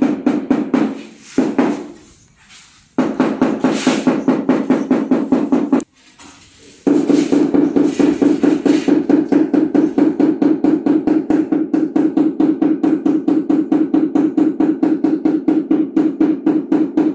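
A mallet tapping rapidly and evenly on large floor tiles, about five blows a second, to bed the tiles into the mortar. The knocking breaks off briefly about 1.5 s in and again about 6 s in, then runs on steadily.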